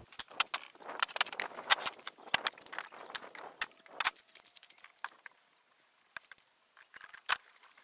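Irregular sharp knocks and clacks of wooden frames being handled and set together on a plywood worktable, the loudest about a second and a half in, with a quieter spell past the middle.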